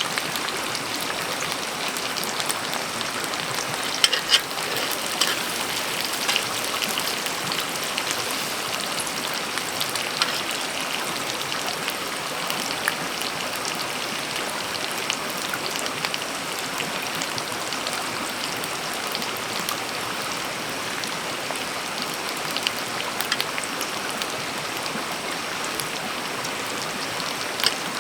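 Steady rain, with scattered sharper drop hits standing out, a few louder ones about four seconds in and near the end.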